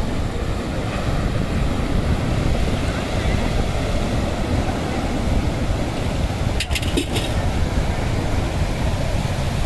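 Surf breaking on a rocky shore under a steady rush of wind buffeting the microphone, with a few sharp clicks about seven seconds in.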